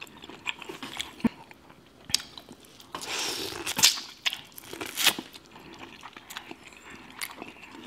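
Biting and chewing corn on the cob coated in seafood boil sauce: scattered crunches and clicks, busiest between about three and five seconds in.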